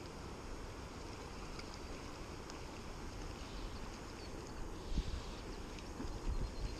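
Steady wind and river water noise on a small action-camera microphone, with a dull knock about five seconds in and a couple of smaller ones soon after.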